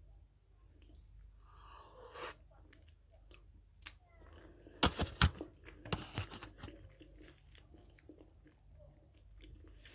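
Close-up chewing and biting of cooked shrimp, with wet mouth sounds. Sharp crunchy clicks come in a cluster about five seconds in and again about a second later.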